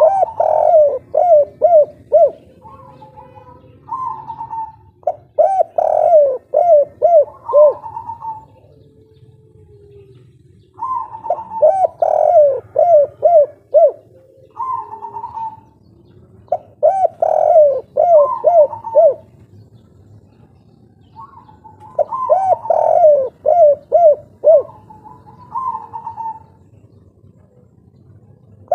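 Spotted dove singing loudly: a song of the kind keepers call "kuk 3", made of repeated cooing phrases, each a run of several quick coos, coming every five to six seconds with a single short coo between some of them.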